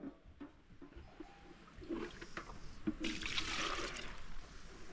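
Water trickling and splashing, louder from about three seconds in.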